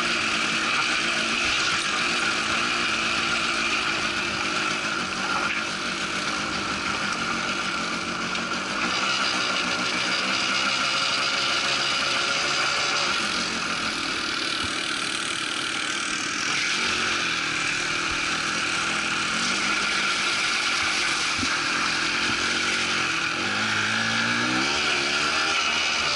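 Quad bike engine running under way over a rough track, its pitch rising and falling with the throttle, with a steady rushing noise over it; the pitch climbs near the end.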